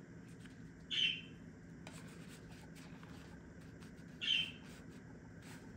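Hands rubbing and handling journal paper, with faint clicks. Two short high chirp-like squeaks about three seconds apart stand out above it.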